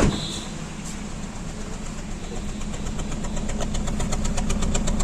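Hyundai Verna petrol engine idling, heard at the exhaust, with a pulsing beat that grows louder. The engine is misfiring, with a cylinder 4 misfire found by the scanner, and the silencer assembly is shaking. A sharp knock sounds at the very start.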